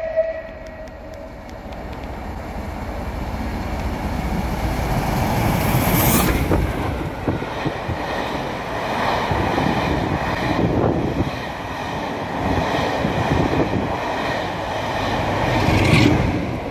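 Rebuilt Bulleid West Country class steam locomotive 34046 Braunton running through at speed. The last of its whistle cuts off right at the start, then the loud rush of the engine and its exhaust comes in beneath the footbridge about six seconds in, followed by the steady rumble and rattle of the passing train. Another rush comes near the end.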